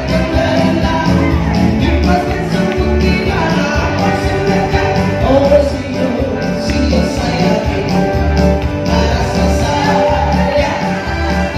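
Upbeat pop song with a steady pulsing bass beat and a singing voice.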